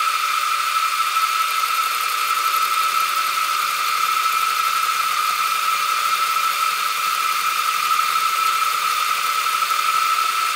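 Deckel FP1 milling machine running in horizontal mode, a gear cutter on the arbor taking a 1 mm deep cut into a gear blank. The machine gives a steady high whine that holds even throughout.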